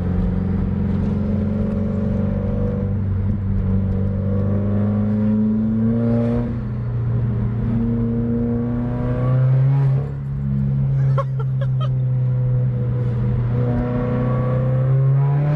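A 2015 Subaru WRX's turbocharged flat-four pulling under throttle through a catted TurboXS J-pipe, heard from inside the cabin with the windows down. The engine drone rises and falls with the throttle and steps up in pitch about nine seconds in and again near the end.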